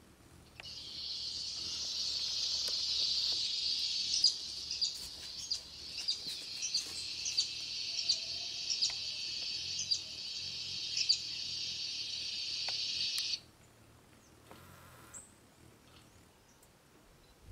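Insect droning steadily at a high pitch, starting about half a second in and cutting off suddenly near the end, with short sharp clicks scattered over it.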